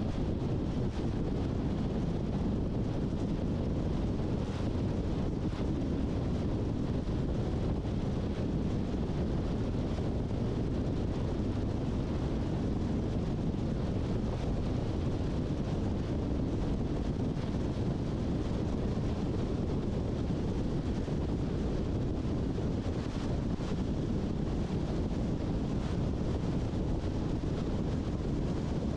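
Steady road noise of a car being driven: a constant low rumble of tyres and engine with a fainter hiss above it.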